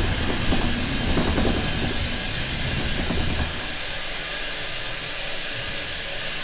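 Former GWR autocoach rumbling and knocking over the rail joints as it slows, the rumble falling away a little past halfway as it comes to a stand. A steady hiss of steam is left.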